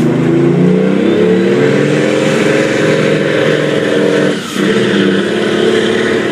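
Diesel semi truck engine at full power dragging a pulling sled, its pitch rising over the first two seconds and then holding high. The level drops briefly about four and a half seconds in.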